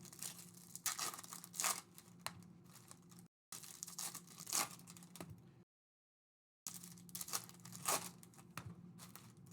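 Foil wrapper of a Topps Chrome trading card pack being torn open and the cards handled, in short, irregular crinkly rustles, with a couple of brief gaps of dead silence.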